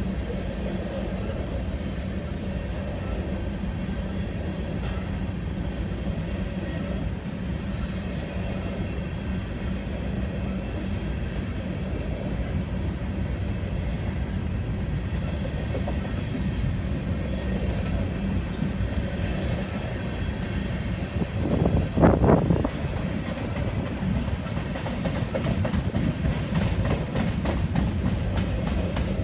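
Loaded covered hopper cars of a freight train rolling past: a steady rumble of steel wheels on rail, with one louder burst lasting about a second roughly three-quarters of the way in and a run of rapid clickety-clack from wheels over rail joints near the end.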